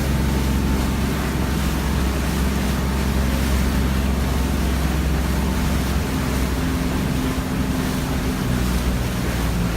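A boat's engine running steadily, with wind and water rushing past. The engine's hum shifts slightly about six seconds in.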